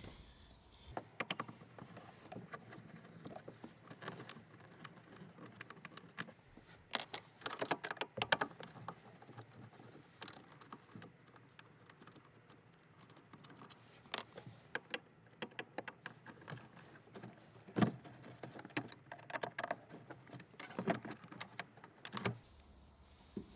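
Irregular small clicks and metallic clinks of hand tools and screws as the dashboard climate control panel is unscrewed, with short quiet gaps between them.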